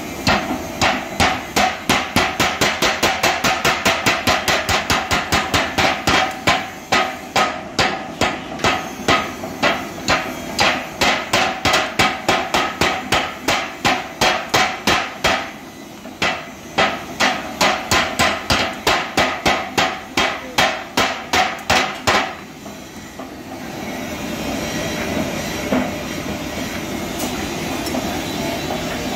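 Mechanical power hammer forging red-hot steel: rapid, even blows about four a second, with a short pause near the middle. The blows stop about two-thirds of the way through, leaving the machine's drive running with a steady noise.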